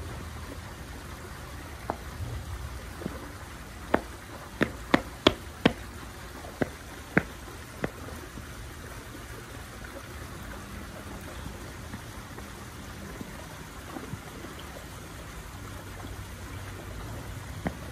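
A string of sharp knocks or taps, about a dozen, most of them between two and eight seconds in and one more near the end, over a steady low hiss.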